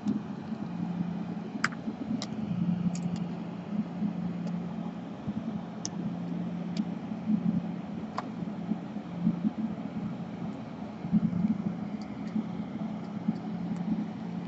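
Light, scattered clicks of small plastic parts and the laptop's DC jack wire being handled as the wire is routed into its hooks, over a steady low background hum.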